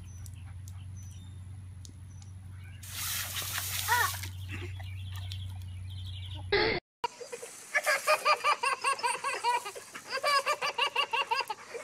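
A baby laughing in quick repeated giggles through the last few seconds, after a sudden cut. Before that: a low steady hum with faint bird chirps, a short hiss about three seconds in, and a toddler's brief vocal sound.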